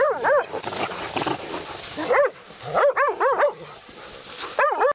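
Hunting laika dogs barking in quick bursts of several barks at a time, baying a badger they have brought to bay.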